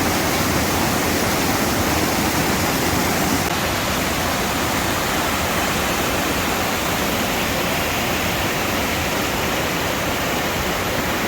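Waterfall on a mountain stream: a steady rush of falling water, a little softer in the highs after about three and a half seconds.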